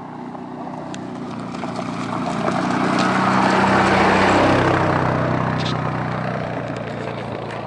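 A small four-wheeled utility vehicle with a cab drives past on a gravel track, its engine running and tyres crunching over the stones. It gets louder as it passes, loudest about four seconds in, then fades away.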